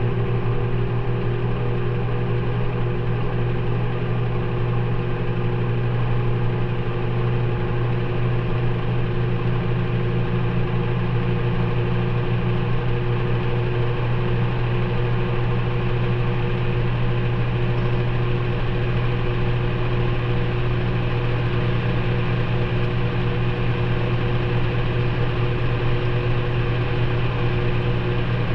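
Maytag front-loading washing machine running partway through a delicate cycle, heard from inside the drum: a steady, unbroken motor hum that does not change.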